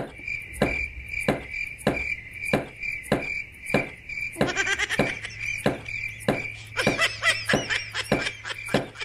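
Knife chopping carrots on a wooden cutting board, one sharp chop about every 0.6 seconds, over a steady chirping of crickets. A high, wavering voice-like sound comes in twice, about four and a half and seven seconds in.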